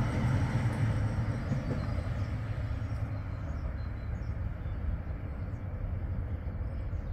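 A tram's low rumble, slowly fading as it moves away.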